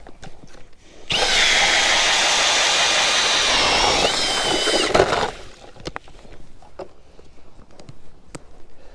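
Milwaukee Fuel cordless drill spinning a hand ice auger into the ice. A steady, high motor whine starts about a second in, runs for about four seconds and cuts off sharply.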